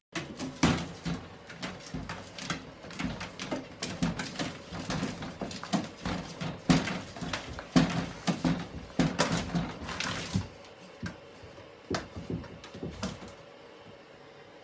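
Golden retriever puppy scrabbling at the rim of an acrylic bathtub: claws scraping and knocking on the tub, with short whimpers. The scrabbling is busiest for the first ten seconds or so, then thins to a few knocks.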